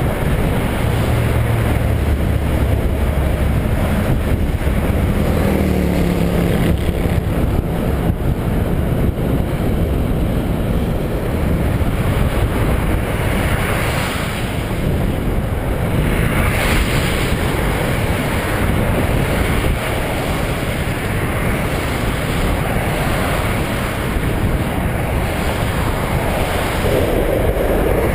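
Loud, steady wind rush buffeting the microphone of a camera riding on a moving bicycle. A low droning hum runs through the first several seconds.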